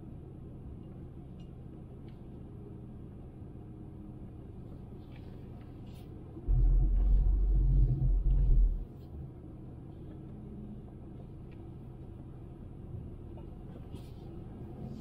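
Steady low rumble of a Honda Civic on the move, road and engine noise. About six and a half seconds in, a much louder, deep rumble comes in for a little over two seconds and then drops back to the steady level.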